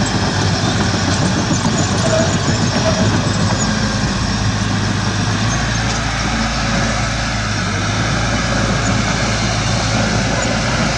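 Heavy diesel earthmoving machinery engine running steadily.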